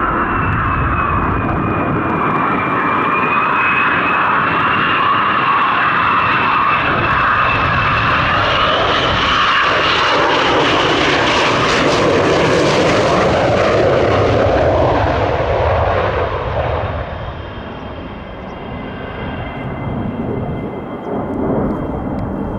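F-22 Raptor's twin turbofan engines on landing approach: a high, wavering howling whine over a jet rush. The rush grows loudest as the jet passes closest, about twelve seconds in, then fades as it comes down onto the runway.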